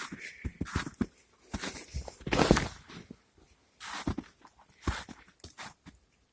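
Footsteps crunching in snow, in several irregular groups of short steps with brief pauses between them.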